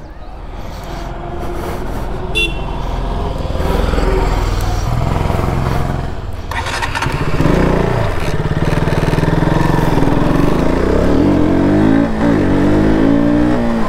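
Sport motorcycle's engine pulling away and accelerating, its pitch rising and falling repeatedly as it goes through the gears.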